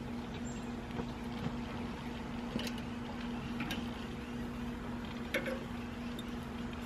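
Barbecue-glazed squirrel pieces sizzling on a charcoal grill grate, a steady hiss, with a few light clicks as the pieces are turned over. A steady low hum runs underneath.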